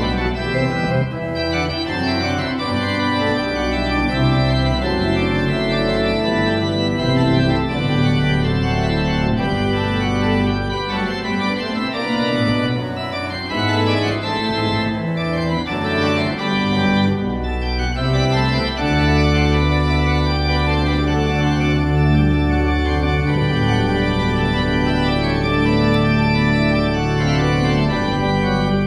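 Pipe organ playing, with many notes sounding together and held. About eighteen seconds in, deep held bass notes come in strongly under the upper parts.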